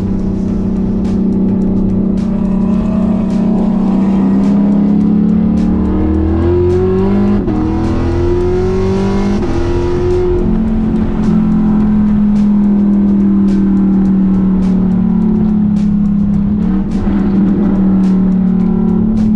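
Chevrolet Camaro's 6.2-litre V8 heard from inside the cabin, running at steady revs on the track. Between about six and ten seconds in, its pitch rises twice as the car accelerates through a gear change, then settles back to a steady drone.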